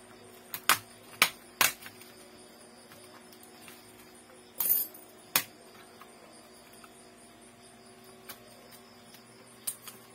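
Sharp plastic clicks and snaps of a laptop's case and keyboard parts being worked apart by hand, over a faint steady hum. Several clicks come in the first two seconds, a short scraping rattle about four and a half seconds in, and a few lighter clicks near the end.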